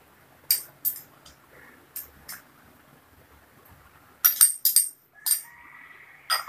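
Steel spoon clinking against a small glass bowl as cornflour is tapped out into a steel saucepan: a few sharp clinks, then a quick run of louder clinks about four seconds in. A clear ringing tone follows and hangs on for over a second.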